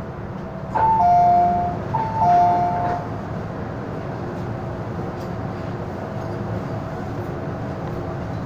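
Two-note ding-dong chime, a higher note then a lower one, sounding twice over the on-board speakers of an MTR M-Train. Under it runs the train's steady running noise with a faint humming tone.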